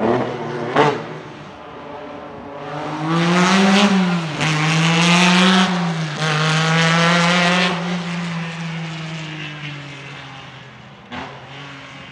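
Lancia Stratos HF Group 4's mid-mounted Ferrari Dino V6 accelerating hard, its pitch rising, dipping at a gear change and climbing again, then holding and slowly fading into the distance. A sharp crack near the start and another near the end.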